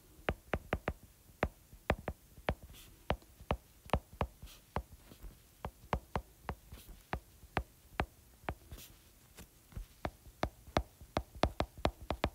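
A stylus tip tapping and clicking on an iPad's glass screen while handwriting, in irregular clusters of sharp clicks, several a second, coming faster near the end.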